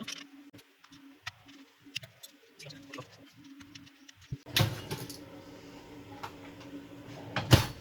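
Screwdriver taking out small screws and a metal catch plate from a wooden panel: scattered small clicks and metallic clinks, a louder clatter about halfway through and a sharp knock near the end. A faint steady hum runs underneath.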